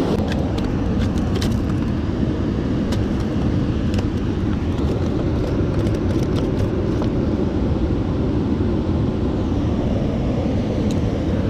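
Water rushing steadily over a river weir, with a few faint clicks scattered through it.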